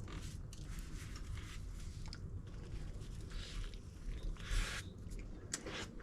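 A person biting into and chewing a burrito, with soft crunchy mouth noises; one louder bite comes a little past the middle.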